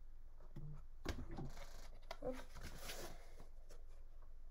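Stiff cardboard pages of a board book being turned and the book handled: a few soft clicks and rustles.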